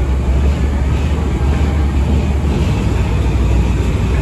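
Sagano Scenic Railway sightseeing train running: a steady, loud rumble of wheels on rail mixed with rushing air, as heard on board its open-sided 'Rich' car.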